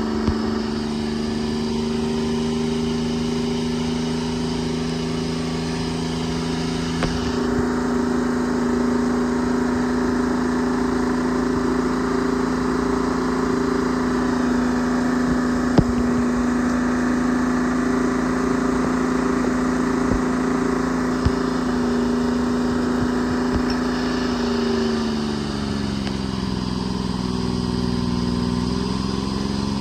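Engine of a Treefarmer C5 forwarder running steadily at constant speed, dipping in speed about 25 s in and picking back up near the end. A couple of short sharp knocks stand out midway.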